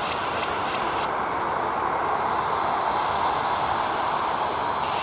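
Boeing 737-800's CFM56-7B jet engines at taxi power: a steady roar, with a thin high whine coming in about two seconds in.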